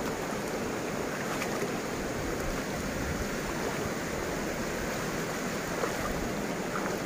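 Shallow river water running over rocks and stones, a steady rushing.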